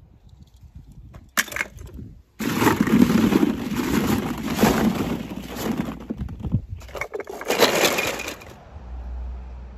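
Hollow plastic ball-pit balls clattering and knocking together as a hand rummages through them, a dense run of clicks and knocks lasting several seconds that stops abruptly near the end.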